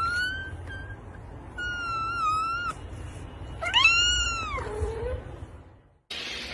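Domestic cat meowing three times: a short rising call, a longer wavering call, and a long call that rises and then falls.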